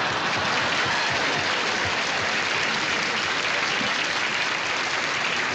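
Audience applauding steadily after a punchline.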